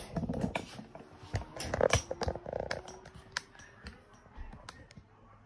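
Handling noise: irregular clicks, knocks and rustling as a phone camera is picked up and repositioned over a heat press, busiest about one to two seconds in and thinning out toward the end.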